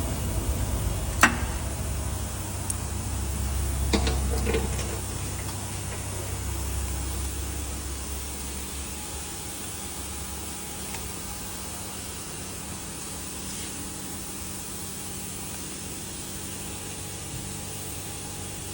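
Workshop background noise: a sharp clack about a second in and a few knocks around four seconds, over a low rumble that dies away, leaving a steady hiss.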